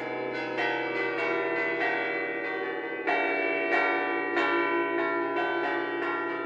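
Church tower bells rung in a melodic bell concert: a steady run of overlapping bell strokes, about two to three a second, each ringing on into the next, growing louder about three seconds in.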